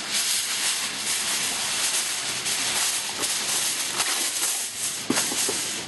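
Heavy-duty aluminum foil crinkling and rustling as a sheet is pulled from the roll and handled: a dense, crackly hiss with a few sharper crackles near the end.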